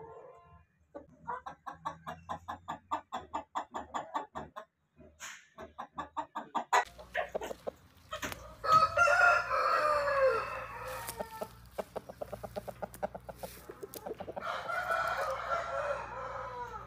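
Aseel chickens calling: runs of quick clucks, about six a second, then two long loud calls of about two and a half seconds each, roughly 9 and 15 seconds in, as the rooster grabs and mounts a hen.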